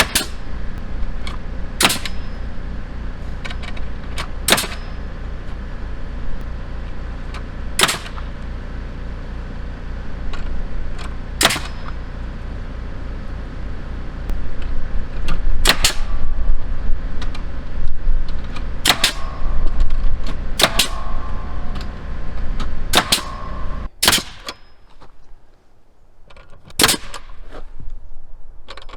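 Senco FramePro pneumatic framing nailer driving nails into cabin siding: single sharp shots every one to four seconds, about a dozen in all, over the steady drone of a diesel generator. The generator drone cuts out about three-quarters of the way through, and a few more nailer shots follow against a quieter background.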